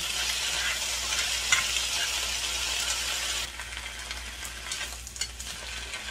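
Chinese greens and enoki mushrooms sizzling in a frying pan as they are stir-fried with chopsticks. The sizzle drops to a quieter hiss about three and a half seconds in, and a few light clicks follow shortly after.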